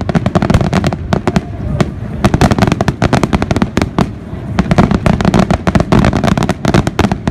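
Fireworks display firing a rapid barrage of shells: many sharp bangs and crackles a second, overlapping over a low rumble, with no let-up.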